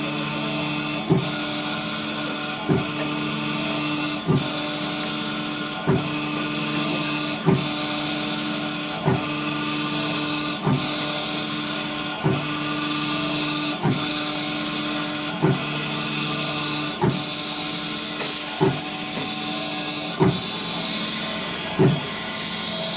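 Small CNC IC engraving and grinding machine running steadily as it grinds down a phone's memory chip: a high spindle hiss over a steady hum, with a brief dip about every one and a half seconds.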